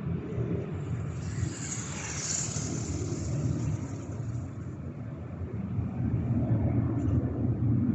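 Airliner engine noise: a steady low rumble, with a high rushing hiss that swells about a second in, peaks, and fades by about four seconds.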